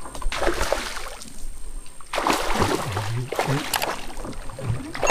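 Water splashing and churning at the surface as a giant snakehead (toman) strikes at a topwater propeller lure. The splashing comes in bursts, strongest from about two seconds in and again near the end.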